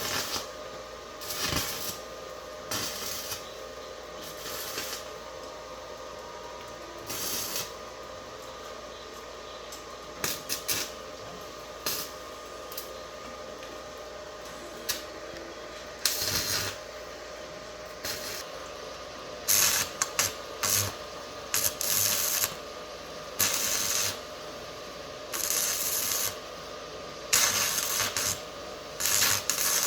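Repair work with hand tools: irregular short scraping or rubbing strokes, more frequent in the second half, over a steady hum.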